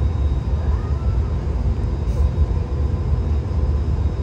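Glass hot shop's furnace burners and exhaust fans running: a steady low roar with a faint hum.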